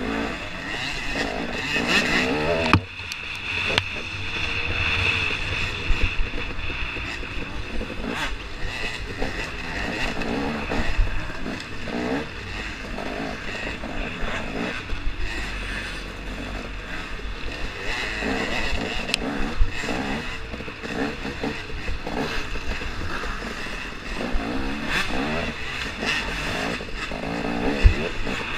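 KTM 250 XC-W two-stroke dirt bike engine revving up and down continually as it is ridden over a rough trail, heard onboard, with a few sharp knocks from bumps.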